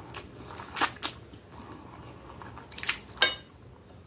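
A few sharp clinks of a metal fork and knife against a plate as spaghetti is twirled up and eaten; the last clink rings briefly.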